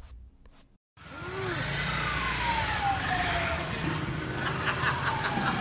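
Street traffic: vehicle engines running with tyre and road noise. A high tone glides down in pitch twice over it.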